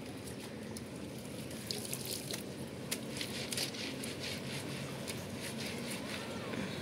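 Small waves lapping and splashing against the bank in irregular little slaps and drips, over a low steady hum.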